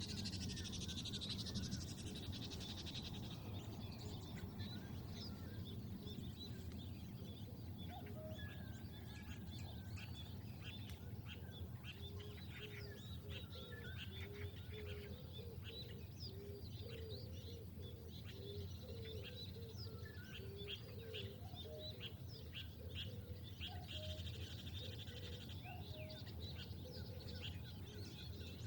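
Birds chirping and calling in open fields, with many short high chirps throughout and a run of short, lower repeated calls through the middle, over a steady low rumble.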